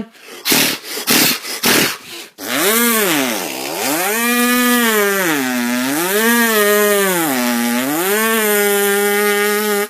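A man imitating a two-stroke chainsaw with his voice into a can. It opens with several short sputtering bursts like pull-starts, then the engine catches and revs up and down three times before holding a steady high note and cutting off sharply.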